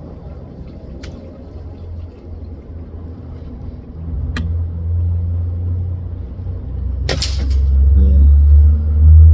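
Air rifle fired twice: a sharp crack about four seconds in and a louder one about seven seconds in, over a heavy low rumble that grows louder toward the end.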